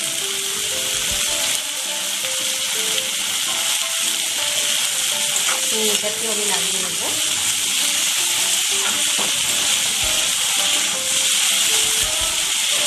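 Diced potato, carrot and onion sizzling in hot oil in a wok, turned over now and then with a steel spatula scraping the pan. The sizzle is steady throughout.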